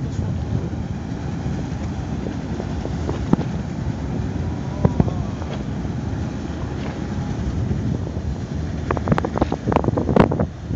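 Wind rumbling on the microphone, a steady low buffeting, with a cluster of short clicks and knocks near the end.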